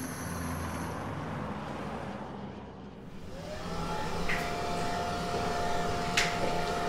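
Steady outdoor background noise for about three seconds. After a brief dip, a steady high hum slides in and holds, with a few sharp clicks over it.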